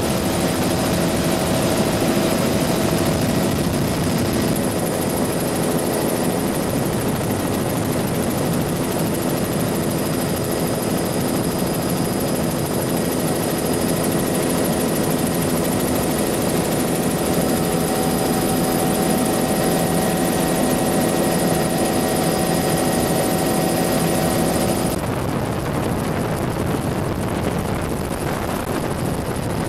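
Bell 206 JetRanger helicopter in flight, heard from inside the cabin with the doors off. Its single Allison 250 turbine and rotor make a steady noise under wind rush, with a thin high turbine whine. Near the end the sound turns duller as the high whine drops away.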